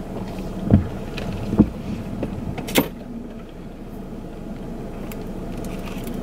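Steady low hum inside a parked car's cabin, with a couple of soft knocks about a second in and a sharp click near the middle.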